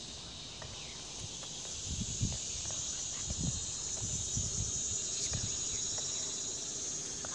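A steady, high-pitched chorus of insects trilling, with a few soft low thumps.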